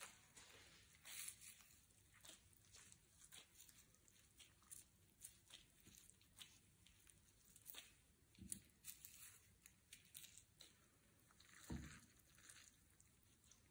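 Faint rustling and light crackling of gloved hands shaping rice balls and rolling them in crumbled dried seaweed, with a few soft knocks against the plate and bowl.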